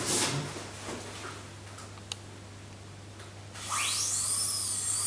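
High-speed dental drill starting about three and a half seconds in, a high whine that rises and falls in pitch as it works on a root-canal-treated tooth being reopened to drain an infection. Before it, faint handling noise and one click.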